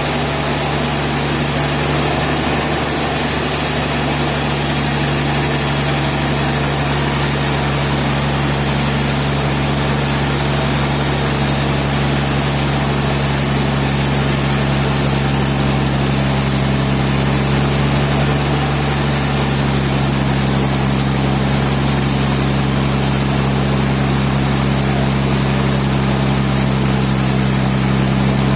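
An engine running steadily at an even speed, a constant hum with no changes in pitch.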